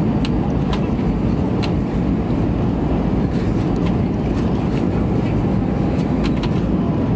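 Steady low rumble inside an Airbus A320 cabin on final approach: engine and airflow noise with flaps extended and landing gear down, heard at a window seat behind the wing. A few faint ticks sound over it.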